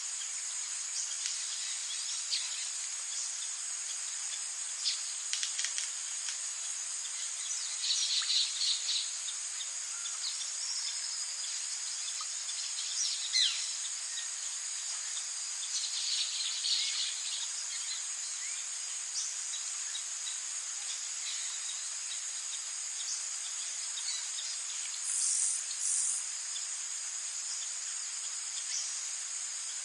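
Forest ambience: a steady, high-pitched chorus of insects, with scattered bird calls now and then and a brief pair of higher calls near the end.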